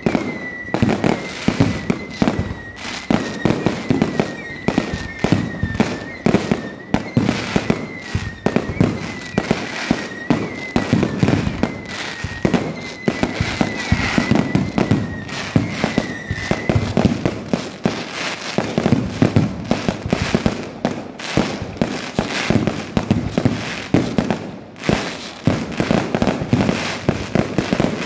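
Aerial fireworks display: a dense, continuous run of bangs and crackles from bursting shells and climbing rockets, many reports a second. A high, wavering whistle runs under the bangs for the first two-thirds, then stops.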